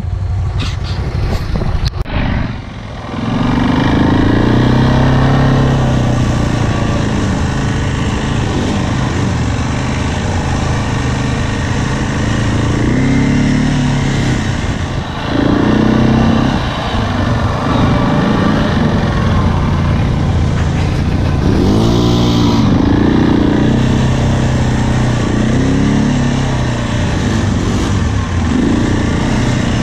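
ATV engine running under way, its pitch rising and falling several times as the throttle opens and closes. A brief hiss comes in about two-thirds of the way through.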